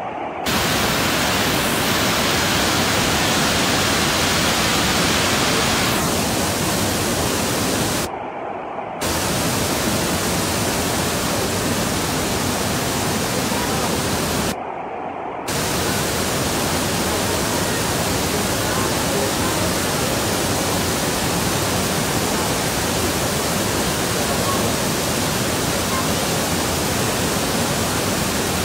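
Floodwater of the Piracicaba River rushing over its rapids: a loud, steady roar of water. It briefly dulls twice, about eight and fifteen seconds in.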